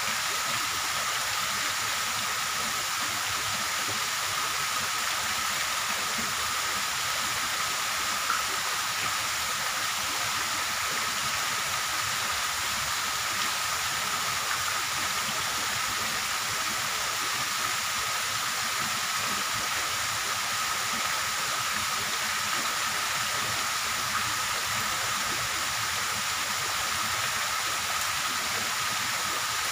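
Steady hissing background noise with a thin, even, high-pitched tone running through it and no clear events.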